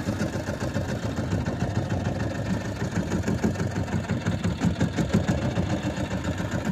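Fishing boat's engine running steadily, a low, evenly pulsing rumble.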